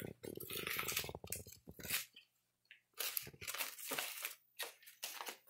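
Paper banknotes crinkling and rustling in irregular bursts as a capuchin monkey crumples and rolls them in its hands, with a short pause about two seconds in.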